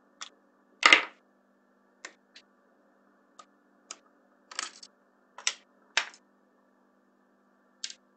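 A Magic Wand Original massager's plastic housing being taken apart by hand, giving about ten short, sharp clicks and knocks at irregular intervals. The loudest knock comes about a second in.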